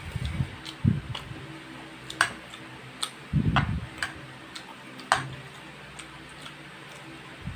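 A metal fork clicking sharply against a frying pan as it works through a pan of instant stir-fry noodles, about four separate clicks, with a few low, muffled thumps in between.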